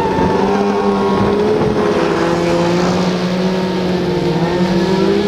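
Snowmobile engines running hard at a steady high pitch as race sleds pull away from the start line, the pitch rising slightly near the end.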